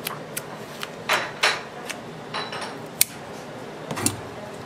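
Gloved hands handling rods of hard candy on a work table: light taps and clicks, two brief rubbing sounds about a second in, a sharp click about three seconds in and a knock near the end as a rod is set down.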